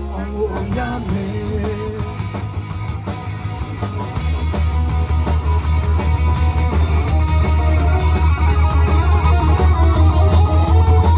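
A live rock band plays an instrumental passage on electric guitars, bass guitar and drum kit. The sung line breaks off right at the start, and the bass and drums grow louder about four seconds in.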